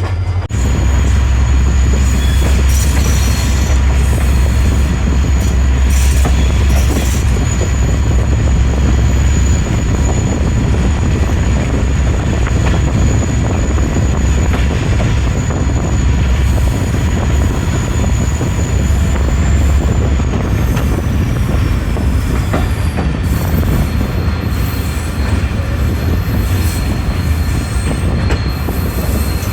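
A passenger train running after leaving the station, heard from on board: a steady, heavy low rumble of wheels on rail. Over it runs a thin high-pitched whine that slides lower about two-thirds of the way through, then holds.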